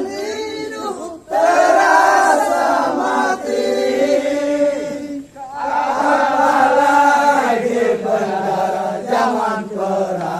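A group of men chanting a Pramuka scout yell (yel-yel) in unison, in sung phrases broken by short pauses about a second in and about five seconds in.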